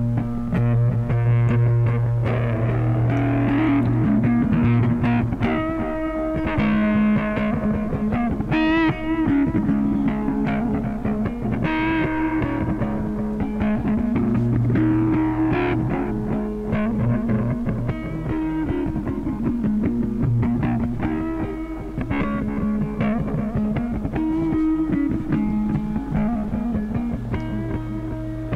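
Electric guitar played solo, mixing sustained single notes with vibrato and chords, over a steady low hum.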